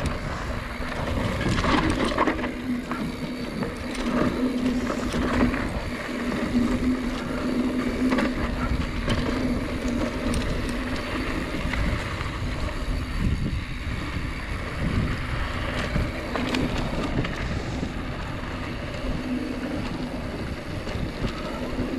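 Mountain bike riding rough dirt singletrack: tyre noise on dirt, frequent short knocks and rattles from the bike over bumps, and wind on the microphone, over a steady low hum.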